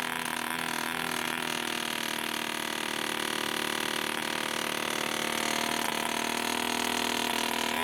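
A small model aircraft engine running steadily at a high, even pitch, with its note lifting slightly about halfway through.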